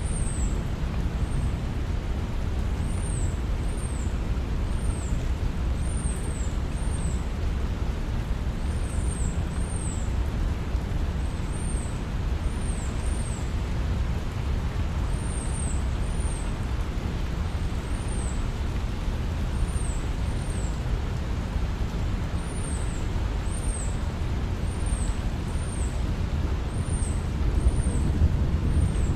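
Steady low rumbling ambience with short, high, falling chirps recurring irregularly about once a second, sometimes two in quick succession.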